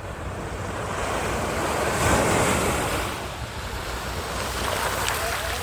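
Ocean surf: a wave breaks and washes in, swelling to its loudest about two seconds in, with wind rumbling on the microphone.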